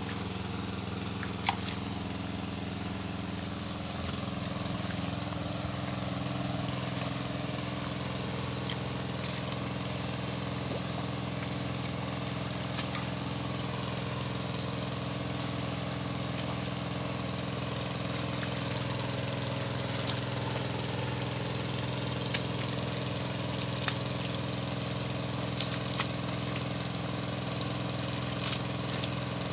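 Small engine running at a steady speed, driving a water pump that is draining the ditch, with muddy water rushing from the outlet. A few sharp ticks in the second half.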